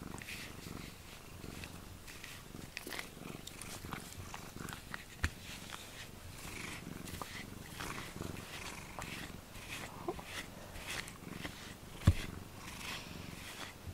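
Domestic cat purring steadily right at the microphone while rubbing against it. There is a small sharp knock about five seconds in and a louder one about twelve seconds in, the loudest sound here.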